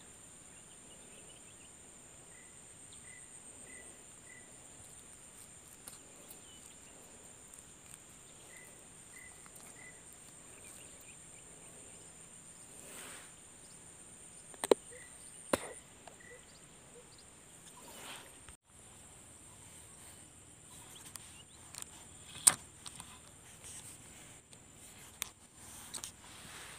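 Steady high-pitched insect drone over quiet swamp ambience, with short chirps in runs of three or four. About halfway through and again later come a few sharp clicks or knocks.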